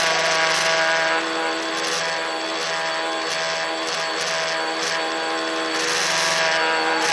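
A tricopter's electric motors and propellers buzzing steadily in flight, recorded by the phone mounted on the craft. The buzz eases slightly about a second in and picks up again near the end.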